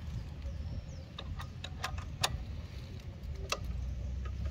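Socket ratchet clicking in scattered single clicks and short runs as it tightens the left-hand-thread spindle nut of a pedal kit, over a low steady rumble.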